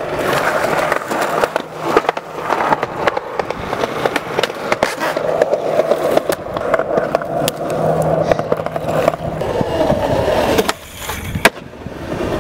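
Skateboard wheels rolling over concrete, a steady rough rumble broken by clicks and clacks of the board as the rider pushes along. A single sharp, loud clack near the end.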